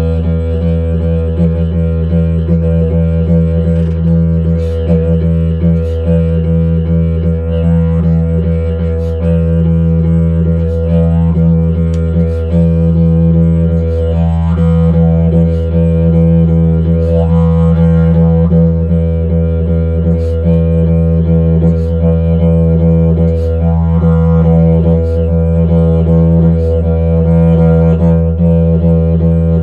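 Didgeridoo played as a continuous low drone with shifting overtones. Rising sweeps in the overtones come every few seconds, and a rhythmic pulse breaks the drone about every second and a half.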